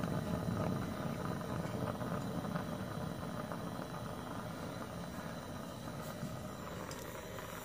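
Workzone portable gas heater burning just after being lit on a screw-on gas bottle: a steady low noise from the burner flame, slowly getting quieter.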